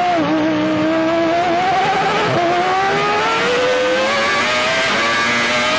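Benetton Renault V10 Formula 1 engine heard onboard, accelerating hard with its pitch climbing steadily. About two and a half seconds in, a quick upshift drops the pitch, and it climbs again.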